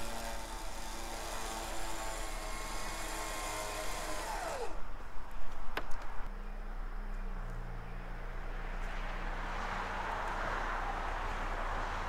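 Electric winch on the front of a Jeep whining under load as it pulls a stuck bulldozer on a multi-part rigging line; about four and a half seconds in the motor winds down in falling pitch and stops. A single sharp click follows, then a low steady engine hum at idle.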